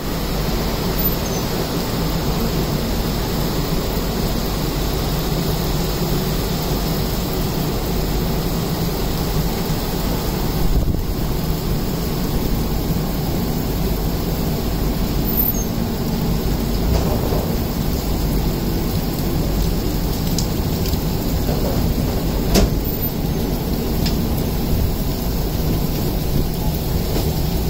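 Heavy rain falling steadily, with the low rumble of the train's coaches rolling slowly out of the station, heard from an open coach doorway.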